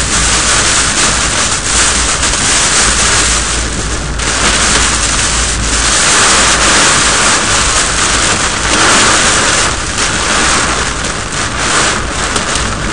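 Heavy rain and wind beating on a car, heard from inside the cabin: a loud, steady rush of noise with many small patters and brief gusts.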